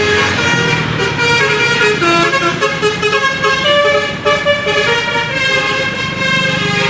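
Bus telolet horn playing a melody of several tones that keep stepping from one pitch to another, over the steady low sound of a large vehicle's engine.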